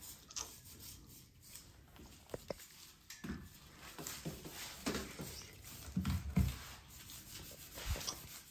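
Brush scrubbing a greasy stainless-steel range hood grease filter: irregular scratchy rubbing strokes, with a few dull knocks as the filter is handled, the loudest about six seconds in.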